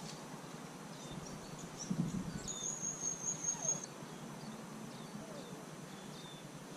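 Insects trilling: a bright, high, steady trill lasting about a second near the middle, over a faint constant high hum and scattered short high chirps. A low thump comes about two seconds in.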